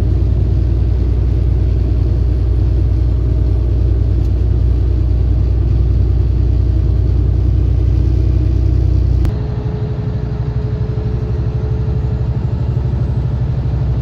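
Steady low drone of a Kenworth W900 semi truck heard from inside the cab while it drives down the highway: engine and tyre noise together. About nine seconds in the sound changes abruptly and drops a little in level, with a faint steady hum coming in.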